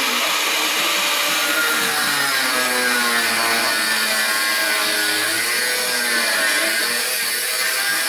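Angle grinder running steadily, a high whine over hiss whose pitch sags and recovers as the load on the disc changes.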